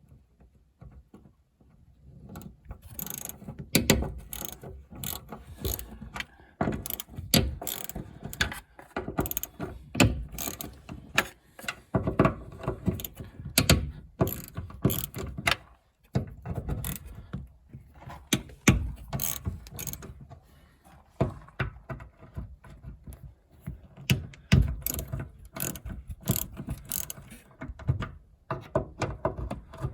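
Irregular mechanical clicking and clanking, like hand tools and metal parts being worked, with no steady hum or squeal.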